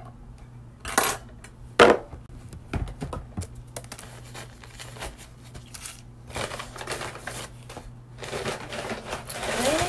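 Paper fast-food bag rustling and crinkling as it is handled and opened, with two sharp crackles about one and two seconds in, the second the loudest, then scattered smaller rustles.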